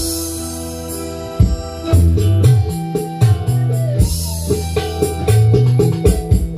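Recorded music with a heavy bass line, keyboard chords and drum hits, played back loud through an Ashley mixer and sound system during a sound check.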